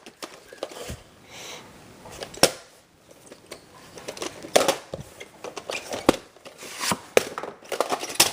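Irregular sharp clicks, taps and rustling of a plastic VHS cassette and its case being handled.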